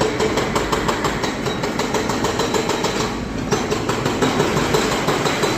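Hydraulic breaker hammer on a Volvo EC300DL excavator pounding in a fast, even run of blows, with a short break about three seconds in. The excavator's diesel engine runs underneath.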